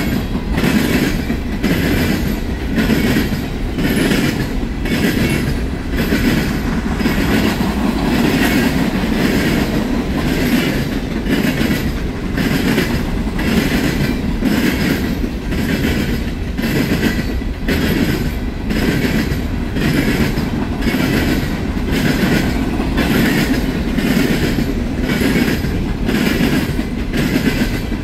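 Coal train of steel hopper cars rolling past, a steady low rumble with wheels clacking in an even rhythm, a bit more than once a second.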